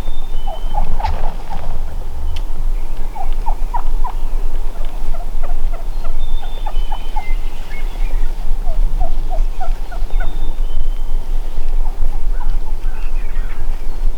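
Merriam's wild turkeys gobbling, several rattling gobbles in a row with short gaps between them, over a steady low rumble.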